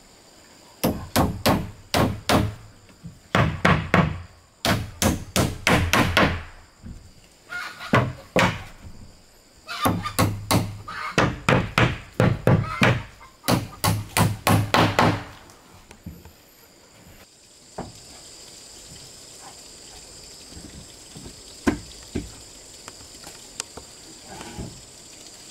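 Hammer striking wood in quick runs of blows, about four a second, with pauses between runs. The blows stop about fifteen seconds in, leaving a steady high hiss and a few faint taps.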